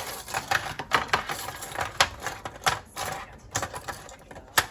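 A rapid, irregular run of sharp clicks and taps from kitchen items being handled, several a second, with a louder click near the end.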